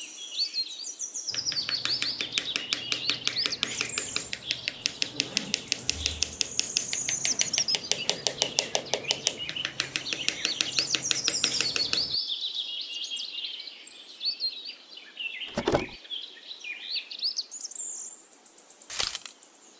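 Birds chirping and singing, with a fast, even rattle running under them from about a second in until about twelve seconds. Two short knocks come near the end.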